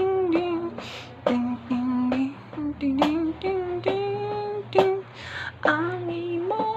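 A man singing and humming a slow melody without accompaniment, holding long notes, kept in time by sharp hand taps every second or two.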